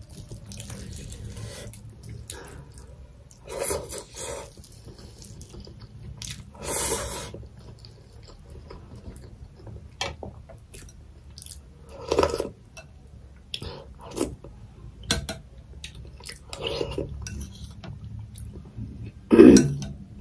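Close-miked eating sounds: meat being pulled off a cooked goat's head by hand and chewed, giving scattered wet clicks and smacks. A spoon knocks in the soup bowl near the end.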